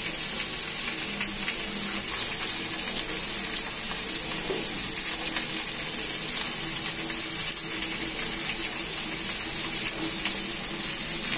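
Paneer cubes, green capsicum and onion frying in oil and butter on a flat pan: a steady sizzle with small crackles.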